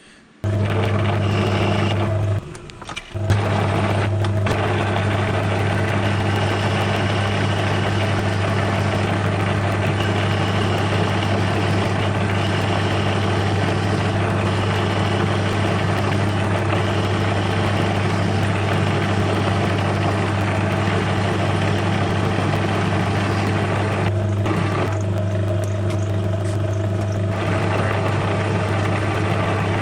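Small metal-turning lathe switched on, its motor starting abruptly and running with a steady low hum. It briefly dips and picks up again about three seconds in.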